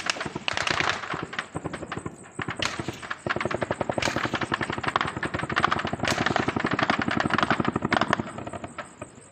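Sustained automatic gunfire: long rapid bursts from several guns at once, overlapping and running almost without a break.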